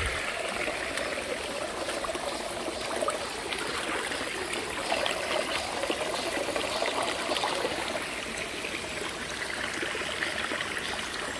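Shallow rocky mountain stream trickling and splashing over stones and gravel, a steady rush of water.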